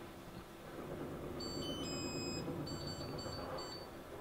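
Built-in electric oven's touch control panel beeping as its buttons are pressed to set it: a string of short high electronic beeps, with one longer tone about two seconds in.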